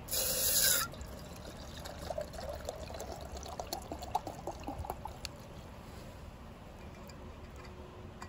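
Water poured from a plastic bottle into a stainless steel camping pot, splashing and trickling for about three seconds before it stops. A brief loud noise comes first.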